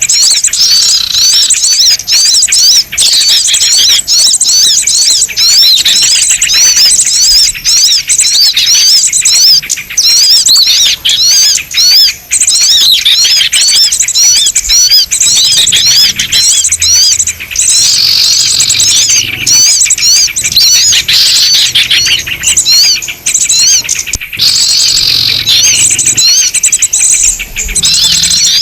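Small-bird lure call (suara pikat): a loud, unbroken chatter of many small birds, quick high chirps sweeping up and down over and over.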